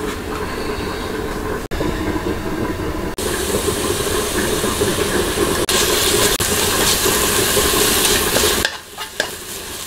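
Oil and minced garlic sizzling in a frying pan as a wooden spoon stirs them. The steady hiss starts about a third of the way in and cuts off suddenly near the end, over a steady low hum.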